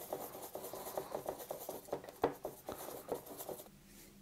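Bristle brush mixing gouache paint on a palette: a quick run of short, soft scrubbing strokes that stops near the end.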